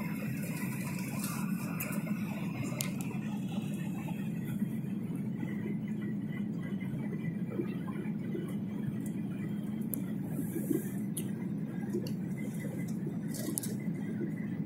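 Steady jet airliner cabin noise from the engines and airflow, heard from a window seat while the aircraft is on its landing approach. A constant low drone with a faint thin whine above it.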